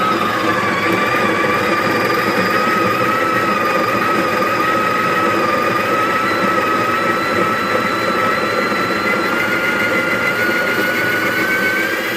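Breville Barista Pro's built-in burr grinder running a 14-second timed grind of coffee beans, a steady motor whine whose pitch creeps up near the end.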